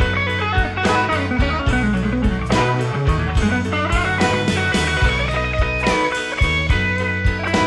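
Country-rock band playing an instrumental break with no singing: electric guitars over bass and drums, with a lead line of sustained notes that bend up and down.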